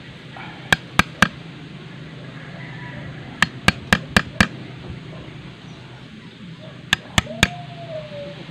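A chisel being struck to cut a hole into a wooden speargun stock: three quick runs of sharp taps, three, then five, then three, about four taps a second.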